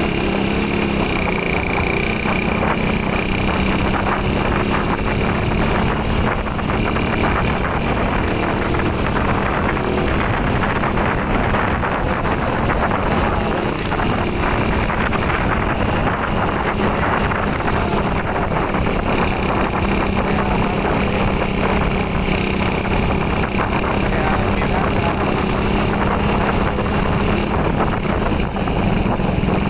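Motorcycle engine running steadily with a constant hum as the bike is ridden along the road.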